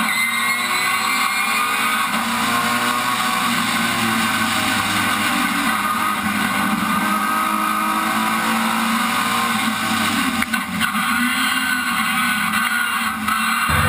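Rallycross car's engine at racing speed, heard onboard, its revs rising and falling as it accelerates and lifts through the bends. There are a few short dips in the sound near the end.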